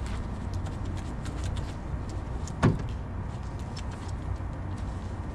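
Wash brush on a telescopic pole scrubbing a yacht's soapy superstructure: faint scratchy brushing over a steady low rumble, with a single knock about two and a half seconds in.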